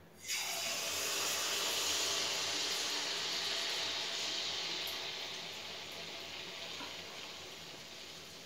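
Malpua batter hitting hot oil in a kadai and frying: a sizzle that starts suddenly a moment in and slowly eases off.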